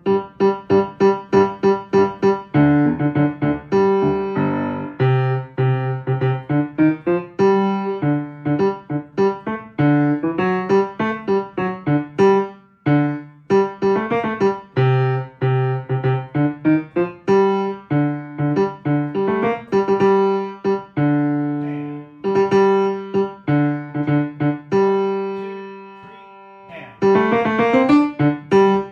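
Piano playing a choral bass part at a slowed-down practice tempo: a steady stream of struck notes and chords. About two-thirds through a held chord fades away, and near the end there is a quick rising run of notes.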